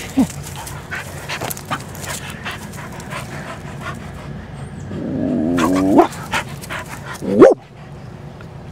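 Black Labrador–Chow mix dog vocalising in excitement at the start of a walk: a drawn-out whine about five seconds in, then one short, loud yelp about a second and a half later.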